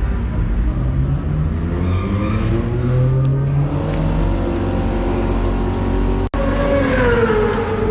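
Racing motorcycle engines running: one rises in pitch as it accelerates, and near the end another falls in pitch as it goes past. The sound breaks off for a moment about six seconds in.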